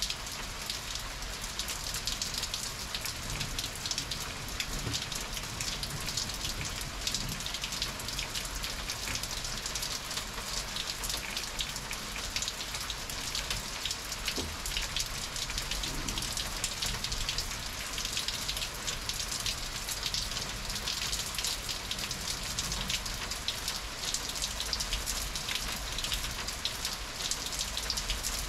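Heavy thunderstorm rain falling steadily: a dense, even hiss of rain with many individual drops ticking close by.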